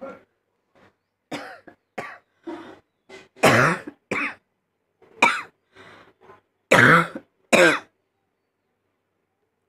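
A person coughing again and again in short, separate bursts, some deliberate and forced. The hardest coughs come about three and a half seconds and seven seconds in, and they stop about eight seconds in.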